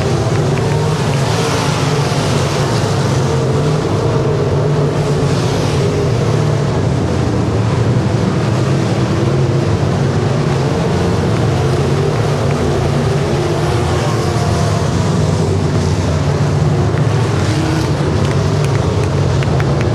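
Engines of a field of super stock dirt track race cars running at race pace around the oval, a continuous loud drone that swells and fades several times as cars pass the grandstand.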